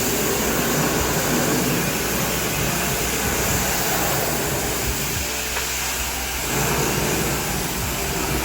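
Pressure washer running, with a steady hiss of water spraying from the wand. The lower part of the sound drops away briefly just past the middle, then returns.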